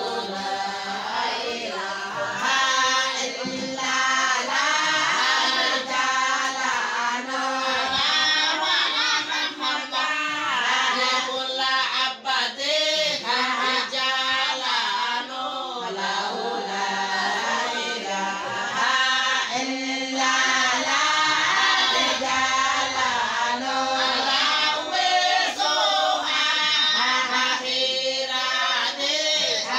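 A group of Somali Bantu women singing a chanted song together, their voices overlapping without a break.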